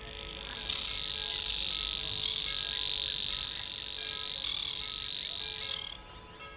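A long, steady, high-pitched trill from a marsh animal, starting under a second in and cutting off after about five seconds, with short bird chirps at its start and end.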